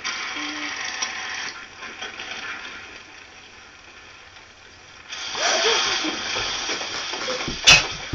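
Old film soundtrack heard through laptop speakers. A loud hissing rush comes in about five seconds in, and a single sharp bang sounds near the end.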